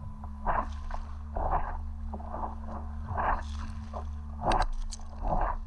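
Stand-up paddle blade dipping and pulling through the water in steady strokes, about one splash a second, over a steady low hum, with a few sharp clicks near the end.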